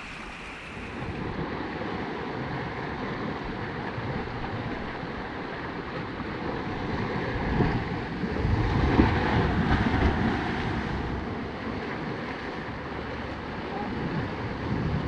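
Rough sea and wind: waves surging and breaking with wind buffeting the microphone, swelling louder for a few seconds in the middle.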